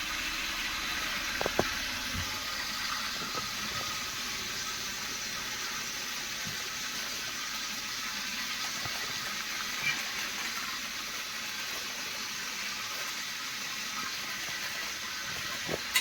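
Food cooking in a pot, a steady sizzling hiss, with a couple of light knocks about a second and a half in.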